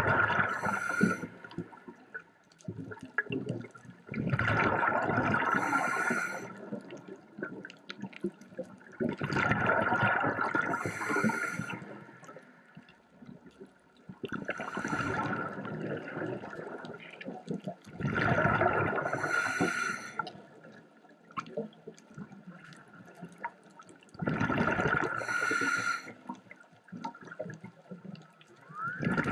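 Scuba diver breathing through a regulator underwater: each breath is a hissing rush with exhaled bubbles, about every five seconds.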